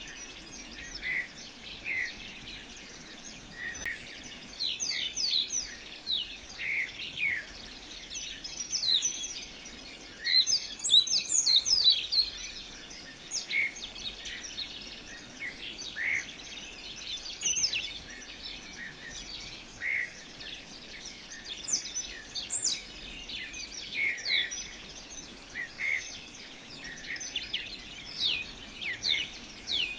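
Small birds chirping: many short, high calls that drop quickly in pitch, repeating throughout, with a busier burst of calls about eleven seconds in.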